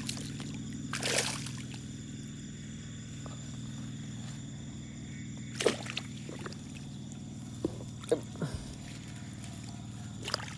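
Water splashing briefly about a second in as a wire-mesh fish trap is lifted out of shallow grassy water, then a few short clicks and squeaks, over a steady low hum.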